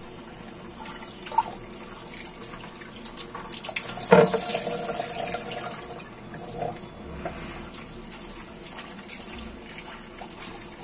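Kitchen tap running into a steel sink while poha is rinsed in a plastic colander, water pouring and splashing out through it, with one louder moment about four seconds in.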